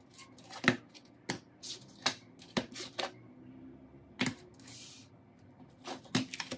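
Irregular sharp taps and clicks, about a dozen, as aluminium iPhone 6 Plus back housings are handled and set down on a wooden tabletop, with a short rustle of plastic bag a little after the middle.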